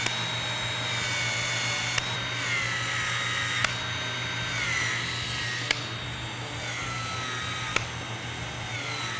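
Cordless ProPEX expansion tool expanding the end of a 1-inch PEX-A pipe and its ring: the motor whines steadily, its pitch sagging under load on each stroke. A sharp click comes about every two seconds as each expansion cycle ends, five times in all.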